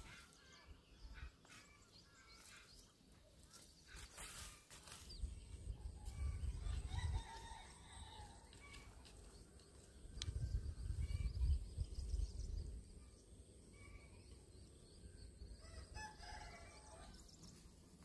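Rooster crowing about seven seconds in, with a shorter chicken call near the end. Two stretches of low rumble run underneath, the louder one about ten to twelve seconds in.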